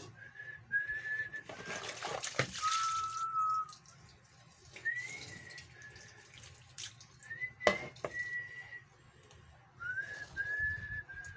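Water splashing and sloshing in a plastic basin as hands wash in it, loudest in the first few seconds, with a sharp knock a little past halfway. A string of short whistled notes, steady tones with small upward slides, runs over it.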